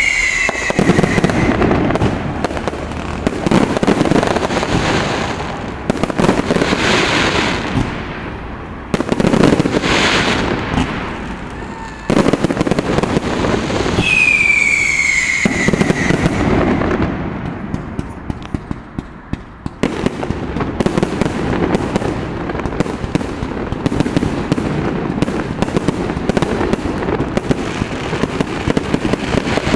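Fireworks display: aerial shells bursting one after another, with a falling whistle at the start and another about halfway. From about two-thirds in, a fast run of crackling bangs.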